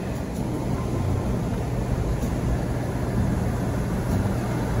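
Four-wheel-drive vehicle driving on beach sand: a steady low engine and tyre rumble with a constant low hum.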